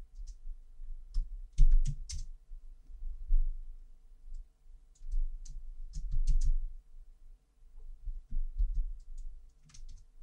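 Computer keyboard keystrokes and mouse clicks in scattered short groups, several quick clicks at a time, many with a dull low thump.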